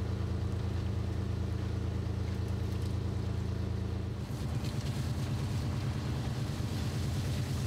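A fishing boat's engine running steadily with a low hum. About four seconds in, the engine sound changes to a rougher, pulsing low note with more hiss above it.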